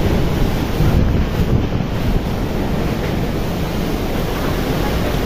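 Typhoon wind blowing hard and steadily, buffeting the microphone with a heavy low rumble under a constant rushing hiss.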